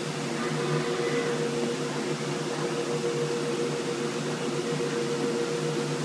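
Kongsberg XL-44 digital cutting table running: a steady machine hum with several fixed tones as the PowerHead tool head travels over a corrugated cardboard sheet. A faint rising whine comes in briefly about half a second to a second in.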